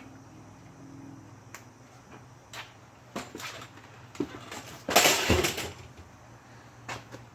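Scattered clicks and metallic clatter of parts and tools being handled, with a louder scraping burst about five seconds in.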